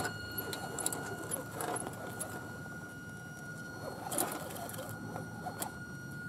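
Electric drive of a 1/10 scale RC crawler truck whining at a steady pitch as it crawls slowly under load, with scattered clicks and crunches from the tyres and the log trailer over wood chips and a wooden ramp.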